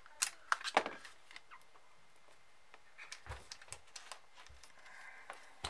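Plastic clicks and small knocks from handling an opened headphone earcup and a small screwdriver at its audio jack: a few sharp clicks in the first second, then lighter taps and dull bumps from about three seconds in.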